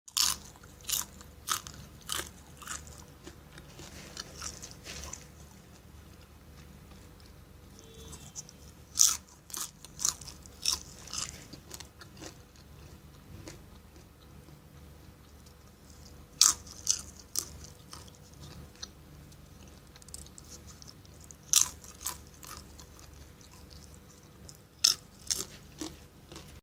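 A person eating crunchy popcorn close to the microphone: sharp crunches as mouthfuls are bitten and chewed, coming in clusters of several crunches with quieter chewing in between.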